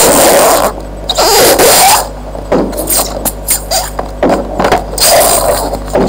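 Headphone box handled right against the microphone: loud irregular scraping and rubbing bursts with a few knocks. A steady low electrical hum runs underneath.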